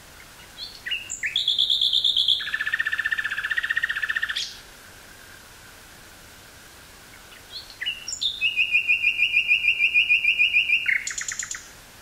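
Common nightingale singing two song phrases, each a fast run of rapidly repeated notes, separated by a pause of about three seconds. The first phrase starts about half a second in; the second starts about seven and a half seconds in and ends just before the close.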